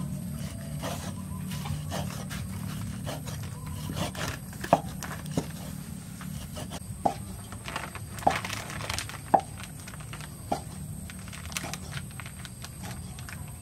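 Steel cleaver cutting raw pork on a thick wooden chopping board, a sharp knock each time the blade hits the wood, about once a second and irregular.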